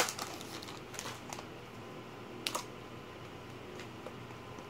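Trading cards handled and flipped through by hand, making a few light clicks and ticks of card edges, the sharpest about two and a half seconds in.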